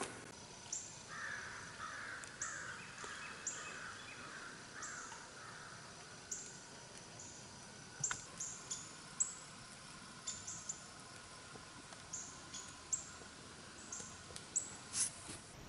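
Faint birdsong in the woods: short, high, downward chirps repeated throughout, with a run of harsher, lower calls in the first few seconds. A few small clicks now and then.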